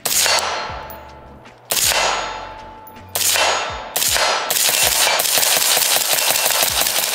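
Suppressed 5.56 AR-pattern rifle (a 15.1-inch Type A Rifle Company SPR with an Otter Creek OCM5 suppressor) firing: three slow single shots about a second and a half apart, then a fast string of shots from about four seconds in.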